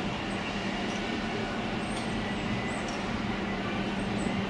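A steady low mechanical hum over a constant wash of outdoor background noise, unchanging throughout.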